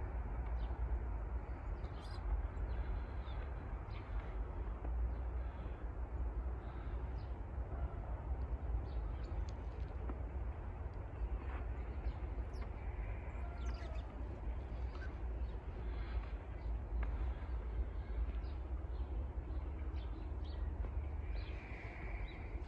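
Outdoor ambience: a steady low rumble with a few short bird calls now and then, more of them in the second half.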